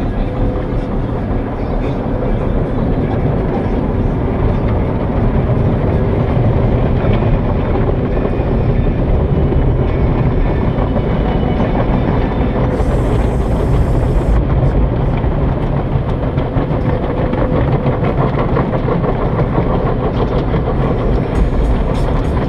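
Car wash equipment running: a steady, loud rumble and wash of noise, with a brief burst of hiss about 13 seconds in.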